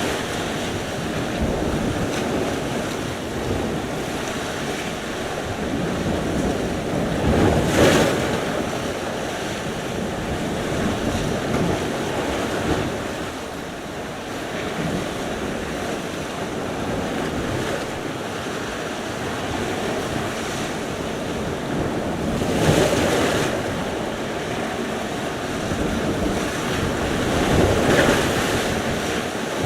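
Sea surf: waves breaking and washing up the shore in a continuous rush. Louder breakers come about eight seconds in, again at about twenty-three seconds, and near the end.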